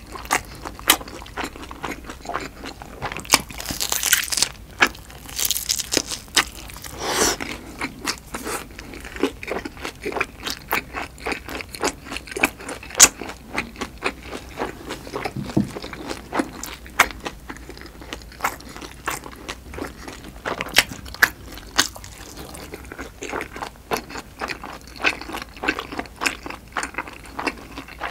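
A person chewing a pan-fried duck bulgogi dumpling: many short, sharp crunching clicks, with a few longer, louder noises in the first eight seconds.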